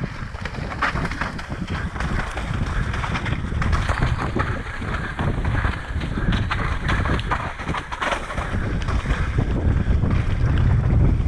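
Wind buffeting a helmet-mounted action-camera microphone as a mountain bike descends a rocky trail at speed, with tyres rolling and the bike clattering over rock in frequent short knocks.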